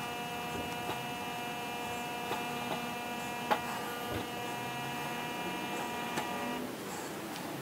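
A steady electric hum made of several even tones stops about six and a half seconds in. Faint light clicks sound over it, with one sharper click near the middle.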